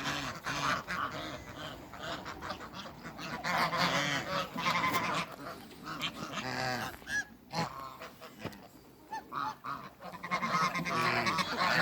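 Toulouse geese honking and calling over one another in loud bouts, with a quieter lull a little past the middle.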